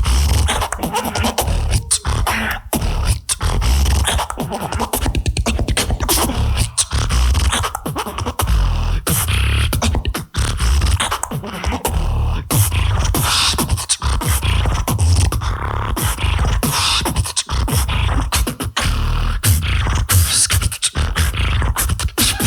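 Live beatboxing through a microphone and PA: a fast, dense rhythm of mouth-made kicks, snares and hi-hat clicks over heavy bass, with no break.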